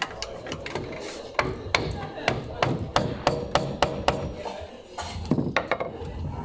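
Hammering: a steady run of sharp blows, about three a second, stopping around four seconds in, then a few more quick blows near the end.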